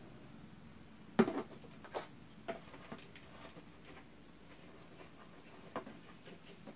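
Plastic bottles being handled on a table: a large glue bottle set down and capped, giving a few short knocks and clicks, the loudest about a second in.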